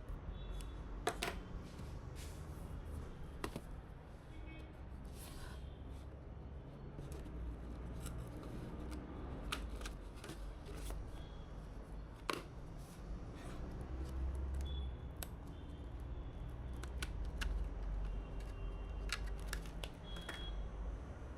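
Hands handling PC components and their packaging: scattered sharp clicks and taps with short rustles, over a low steady hum.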